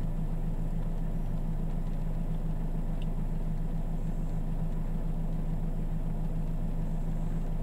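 Mercedes-Benz E-Class W212 CDI common-rail diesel engine idling, a steady low hum heard from inside the cabin.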